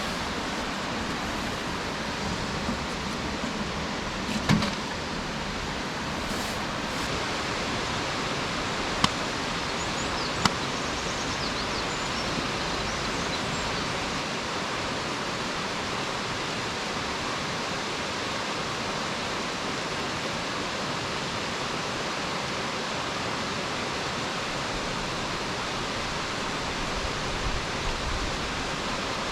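Nachi Falls' water pouring down into its basin, a steady, dense rush of noise. A brief thump comes about four and a half seconds in, and two sharp clicks come at about nine and ten and a half seconds.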